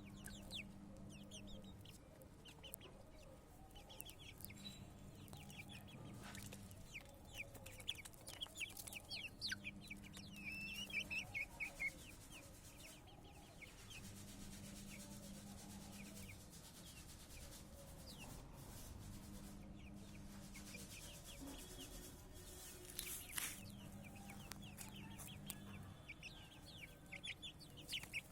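Chicks peeping in quick, high chirps amid chicken clucking, busiest around ten seconds in and again near the end, over a low hum that comes and goes every few seconds.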